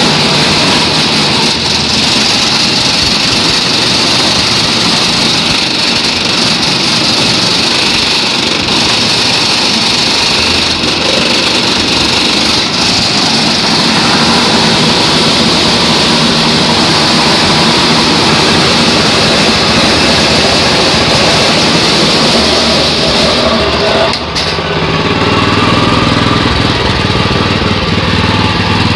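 Orec BC70 hammer knife mower's Mitsubishi 8 hp engine running loud and steady, with a dense mechanical whir. About 24 seconds in the sound dips briefly, the high hiss thins out and a lower, heavier running note takes over.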